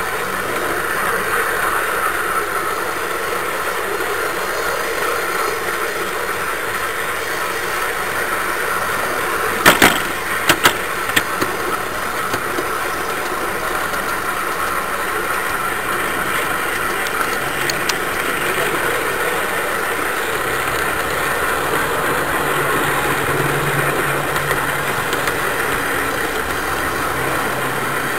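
Garden-scale model train running along its track, a steady rolling and running noise picked up close by the train-mounted camera. A quick run of sharp clicks comes about ten seconds in.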